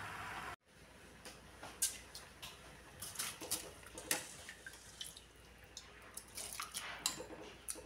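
Water dripping and splashing as handfuls of soaked rice are lifted from a steel bowl of water and dropped into a steel pot of water: a run of short wet splashes and drips. A steady hiss in the first half second cuts off abruptly.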